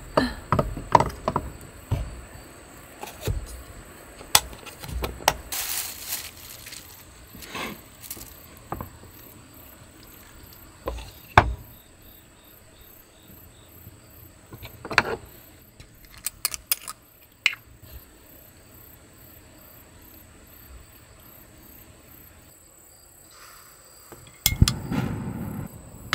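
Small glass jars with metal screw caps clinking and knocking as they are lifted from and set back into a wooden box, with scattered knocks on the wooden counter, over a steady chirping of crickets. About 24 seconds in, a gas camping stove is lit and its burner starts to hiss.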